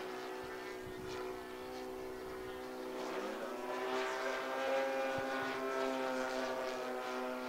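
Laser 160 inline-twin four-stroke glow engine of a large RC P-51 Mustang model running with a steady note, growing louder about four seconds in.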